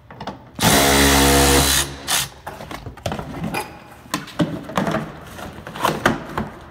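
A cordless power tool runs steadily for just over a second, spinning out one of the 10 mm bolts that hold the plastic splash shield under the car. Scattered clicks and knocks of tool and parts being handled follow.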